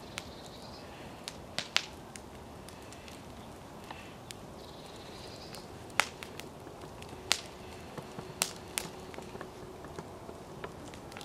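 Wood fire crackling in an open fire bowl: irregular sharp pops, the loudest about six and seven seconds in.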